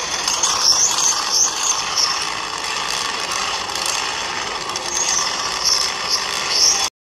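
Radio-controlled 4x4 rock crawler's electric motor and geartrain whining and rattling as it drives, the high whine rising and falling with the throttle several times. The sound cuts off abruptly near the end.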